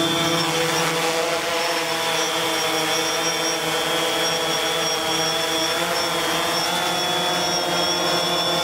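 DJI Phantom 3 quadcopter drone flying: a steady propeller hum with a high motor whine above it. The pitch shifts slightly about two thirds of the way through.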